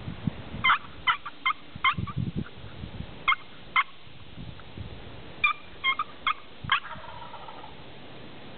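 Wild turkey calling: short, sharp notes in quick runs, four about a second in, two more around the middle and another four later on, with a few low thumps between them.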